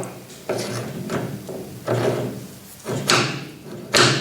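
A 10 mm reamer cutting through a hole in a lathe turning at 100 RPM: a scraping, rubbing sound in repeated strokes about once a second, over the lathe's steady hum.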